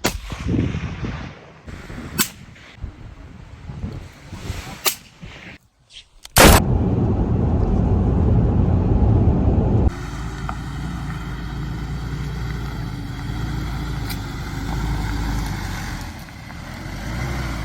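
A few scattered clicks, then a single sharp bang about six and a half seconds in, followed by a steady low rumble.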